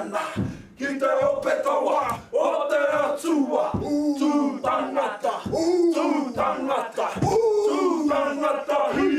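A small group of men chanting a haka in unison, loud shouted lines with short breaks between them, with several low thumps of stamping and body slaps between the lines.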